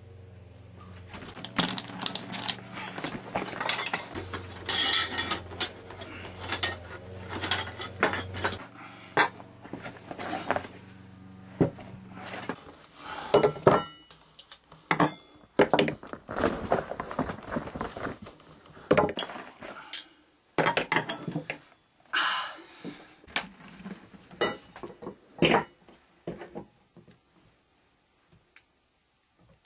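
Metal hand tools (spanners, pliers, a file, a socket) clinking and clattering as they are taken out of a satchel and set down on a wooden table, in a long irregular series of knocks that thins out near the end.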